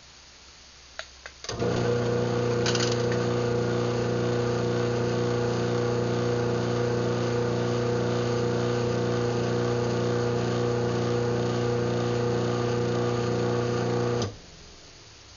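Craftsman half-horsepower chain-drive garage door opener (139.53930DM) running an opening cycle: a couple of clicks, then the motor and chain run with a steady hum for about thirteen seconds and stop suddenly.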